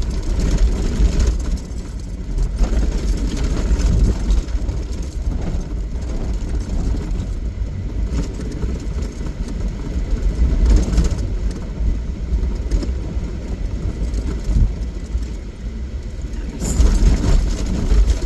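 Off-road vehicle's engine and drivetrain running as it drives a muddy trail, a loud uneven rumble that swells and eases, with a few brief knocks and rattles.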